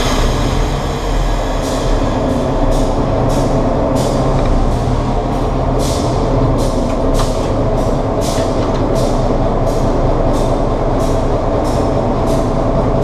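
Fairbanks-Morse H-12-44 switcher's opposed-piston diesel engine running steadily, heard from inside the cab. Over it, a sharp metallic click repeats about twice a second.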